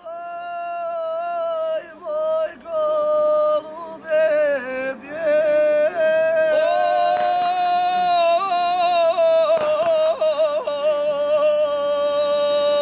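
Group of men singing a traditional bečarac unaccompanied, in long held notes. The sound grows fuller and louder about four seconds in.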